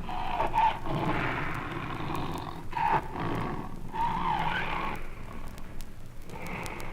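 Siberian tiger growling and snarling over its meat at feeding time, in uneven rasping bursts. Faint clicks of vinyl surface noise run underneath.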